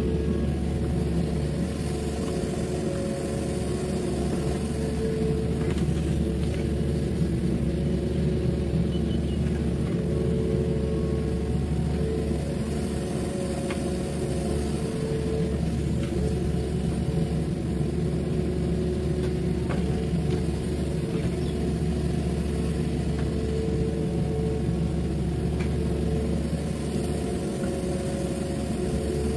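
Mini excavator's diesel engine running steadily under hydraulic load as it digs and loads dirt into a dump truck, with a few faint knocks now and then.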